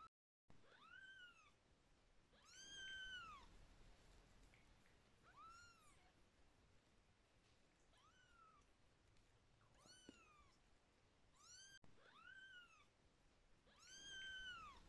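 Newborn kittens mewing while being stroked: about eight short, high mews, each rising and then falling in pitch, spaced a second or two apart.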